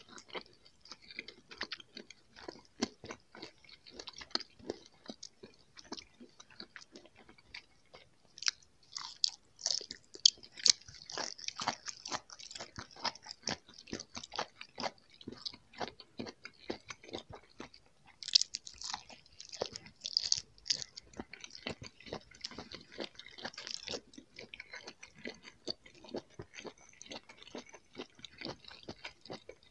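Close-miked chewing and biting of jelly candies: soft, wet mouth clicks throughout, with two spells of louder crunching, about a third of the way in and again past the middle, from a piece with a crisp coating.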